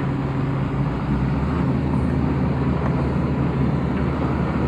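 Heavy-equipment diesel engine running steadily under load, a constant low drone with no changes.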